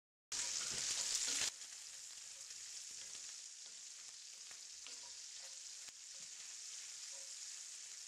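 Diced bacon sizzling and frying in its own rendered fat in a skillet, stirred with a wooden spoon. The hiss starts a moment in, louder for about the first second, then settles to a steady sizzle with faint crackles.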